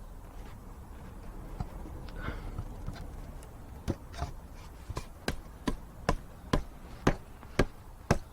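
Faint handling of the glued parts, then from about four seconds in a steady run of sharp knocks, roughly two a second and getting louder, as a freshly glued mortise-and-tenon joint is struck to drive it home.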